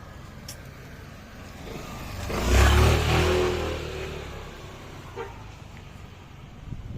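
A motor vehicle passing close by, swelling to its loudest about two and a half seconds in and fading over the next two seconds, over steady street noise.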